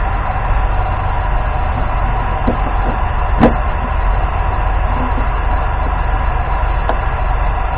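Steady low machine hum with a few light clicks and one sharper knock about three and a half seconds in.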